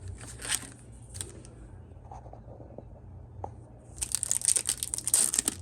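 A foil trading-card booster pack wrapper crinkling and being torn open. A few soft rustles come first, then dense crackling and tearing starts about four seconds in.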